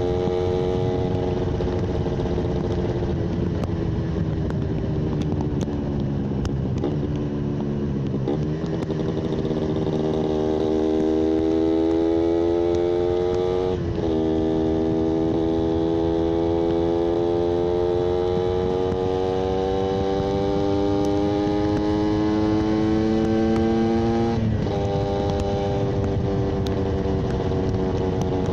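Yamaha 125ZR's single-cylinder two-stroke engine under way. Its pitch falls for the first several seconds as it slows, then climbs steadily under acceleration. The pitch drops sharply at two upshifts, about halfway through and again near the end.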